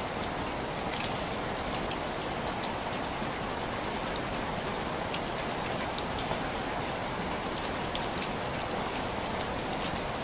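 Steady rain on window glass: a constant hiss with scattered sharp taps of single drops.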